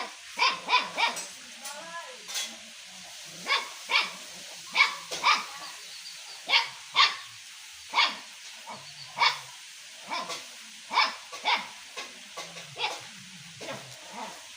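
A dog barking repeatedly in short, sharp barks, some single and some in quick pairs, with gaps of up to a second or so between them.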